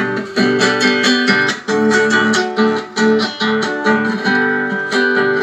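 Acoustic guitar playing an instrumental passage, strummed in a steady rhythm with picked notes ringing on.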